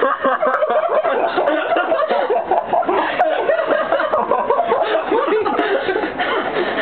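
People laughing and snickering, several voices overlapping without a pause.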